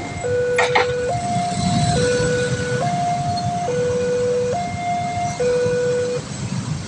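Railway level-crossing warning siren sounding its two-tone alarm, switching back and forth between a lower and a higher tone, each held just under a second, over a low rumble.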